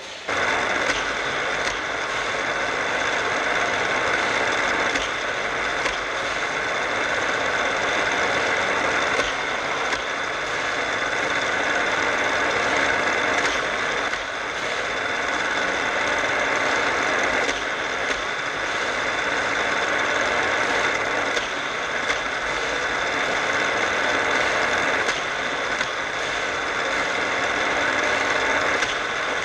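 Battery-powered Hot Wheels track boosters running steadily with a whirring hum that starts abruptly just after the beginning. A faint clack comes every three to four seconds as the die-cast cars are shot through the boosters and around the orange plastic track.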